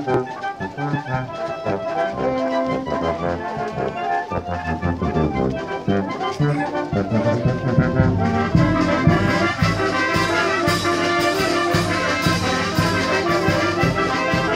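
Village brass band of trombones, trumpets and saxophones playing a tune for a procession, with a steady percussion beat coming through more strongly from about halfway.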